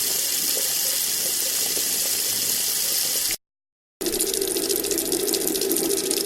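Running water flowing steadily as an even hiss, which cuts off about three seconds in. After half a second of silence a heavier, splashier flow of running water starts.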